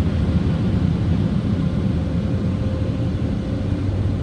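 Washworld Razor car wash's overhead blower dryers running, heard from inside the car as a loud, steady low rush with a faint steady hum over it.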